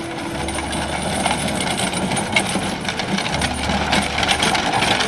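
A two-horse team drawing a wooden wagon on a dirt road: hooves on the ground, the wagon and its spoked wheels rattling, and the metal harness fittings and chains jingling. It is a dense patter of clicks and clinks that grows louder toward the end as the wagon comes close.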